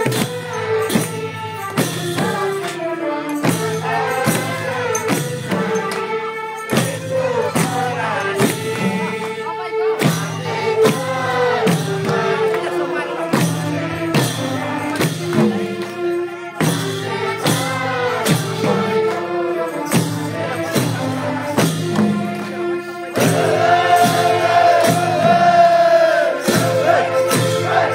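Madal hand drums beaten in a steady rhythm under group singing of a Deusi-Bhailo song. About three-quarters of the way in the singing gets louder.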